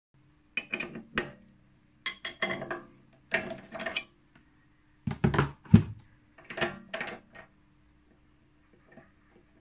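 Metal tools clinking and knocking against a mini lathe's ER collet chuck as a small brass part is freed: five short bursts of clicks and knocks, the heaviest knock a little past halfway, over a faint steady hum.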